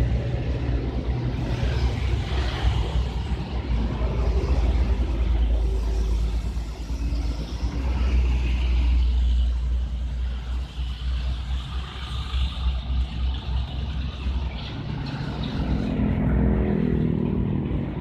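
Road traffic: motor vehicles running and passing on a busy street, with a steady low rumble.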